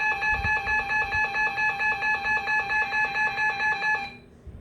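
Emergency weather alert attention tone: a steady, shrill multi-tone alarm pulsing about four times a second, signalling a flash flood warning. It cuts off about four seconds in.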